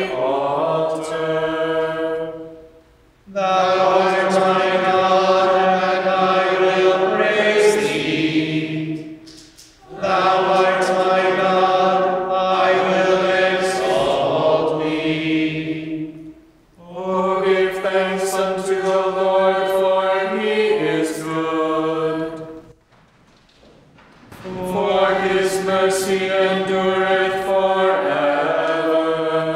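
Choir singing Gregorian psalm chant in unison, mostly on one held reciting pitch with a few steps at the phrase ends. It comes in four long phrases with short breaks for breath between them.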